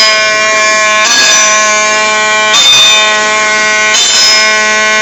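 CNC plasma cutter's arc cutting sheet metal: a loud, steady, high-pitched whine with many overtones, briefly disturbed about a second in, near the middle and about four seconds in.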